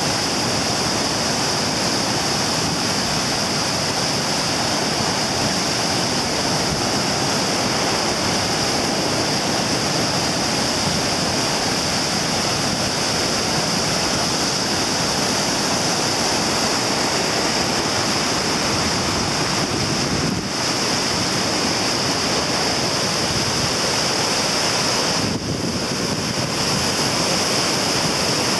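Lagoon floodwater rushing and churning through a breach in a sand dyke, draining into the ocean as a loud, steady rush of white water.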